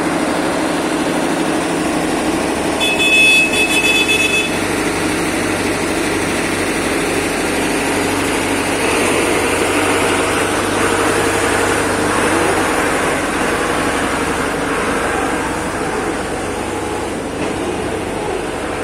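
Excavator's diesel engine running steadily, with a brief high-pitched tone lasting over a second about three seconds in.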